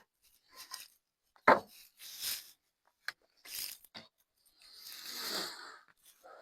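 Intermittent scraping strokes of a hand tool on wood, each a short burst, with one sharp knock about a second and a half in and a longer stroke near the end.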